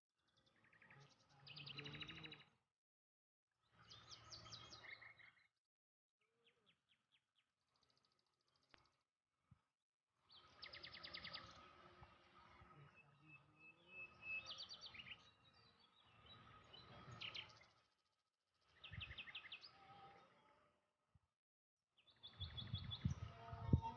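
Birds chirping with quick high trills, in short spells broken by silent gaps, and a low knock near the end.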